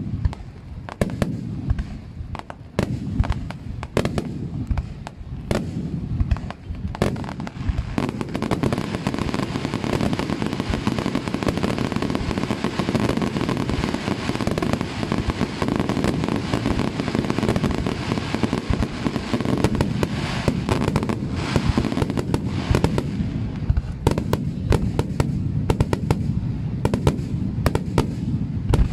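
Aerial fireworks display: a rapid barrage of shell bursts with sharp bangs in quick succession. From about eight seconds in until past twenty seconds the bursts come so thick that they merge into a dense, continuous crackle, then separate bangs return near the end.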